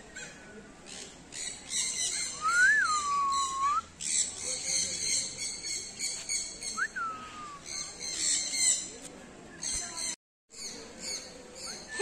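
Forest birds chirping in quick repeated bursts, with two clear whistled calls that rise and then fall, one about two and a half seconds in and one about seven seconds in. The sound cuts out for a moment about ten seconds in.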